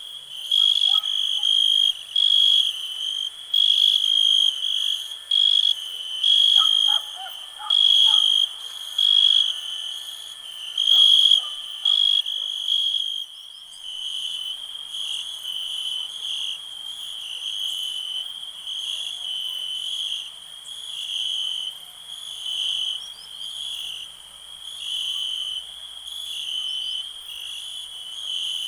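Crickets chirping in a continuous chorus, a high-pitched pulsing trill repeating roughly once a second, with faint frog-like calls underneath in the first half; the chirping gets softer about halfway through.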